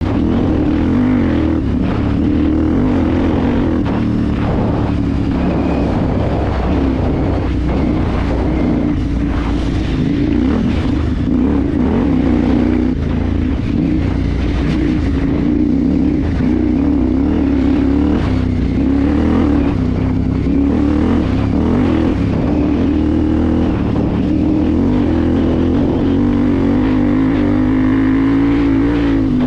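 KTM 990 V-twin engine running hard off-road, its pitch rising and falling with the throttle, with occasional knocks from the terrain.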